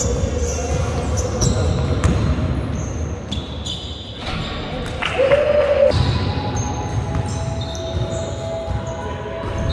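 Indoor basketball game in a large, echoing sports hall: the ball bouncing and players' shoes squeaking on the wooden floor.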